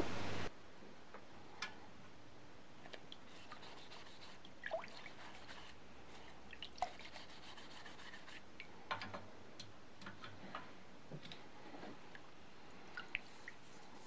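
Cable-damascus steel blade being scrubbed by hand with a small abrasive pad in a bucket of liquid: soft rubbing with scattered drips and small clicks. A loud steady hiss cuts off about half a second in.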